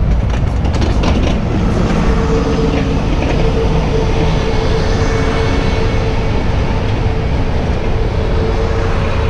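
A train passing close by: a loud, steady rumble, with a steady whine setting in about two seconds in.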